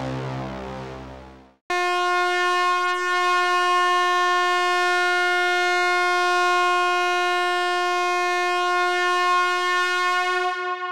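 A low, dark music drone fades and cuts off, then just under two seconds in a single loud, buzzy tone starts abruptly and holds at one steady pitch.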